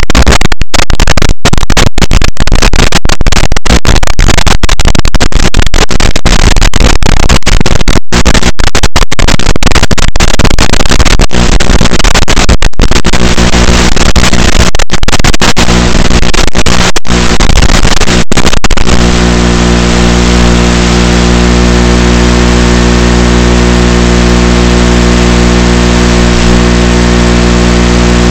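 Loud static hiss from an analog FPV video receiver, crackling with many brief dropouts. At about 19 seconds it settles into a steady hiss with a buzzing hum.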